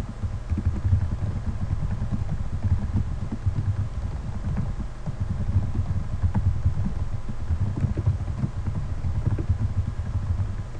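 Typing on a computer keyboard: a continuous, irregular run of key taps.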